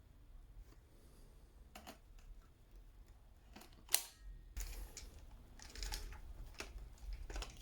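Scattered sharp clicks and brief rustles, with the loudest click about four seconds in.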